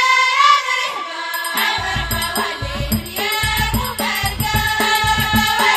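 Ahwach, Amazigh collective song: a group of voices sings together, and a little under two seconds in a steady beat of frame drums and percussion strokes comes in under the singing.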